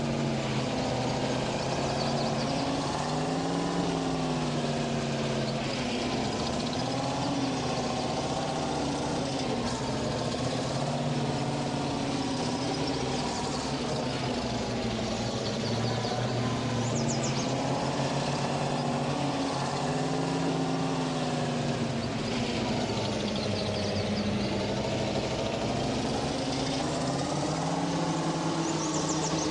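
GAZ vehicle's engine running steadily, its pitch rising and falling gently every few seconds.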